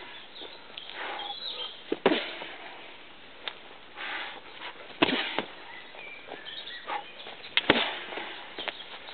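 Kicks and knee strikes landing on hanging punching bags: four dull thuds at irregular intervals, about two and five seconds in and two in quick succession near the end, with smaller knocks and shuffling between.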